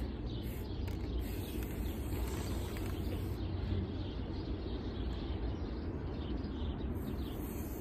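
Outdoor background noise: a steady low rumble with faint bird chirps now and then.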